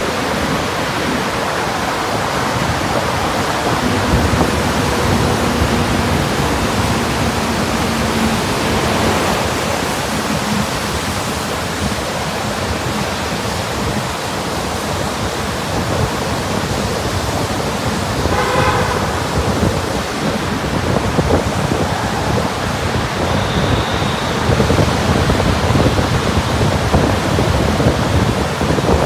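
Steady, loud road and engine noise of traffic echoing inside a rock road tunnel. A vehicle horn gives a brief honk about eighteen seconds in.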